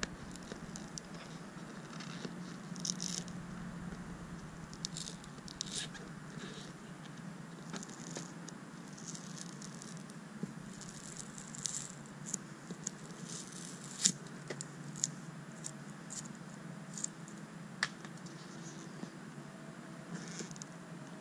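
Fingernails picking and scraping at a glued-on chrome emblem letter on a boat hull, working it loose: scattered small clicks and scratches, one sharper click about fourteen seconds in, over a steady low hum.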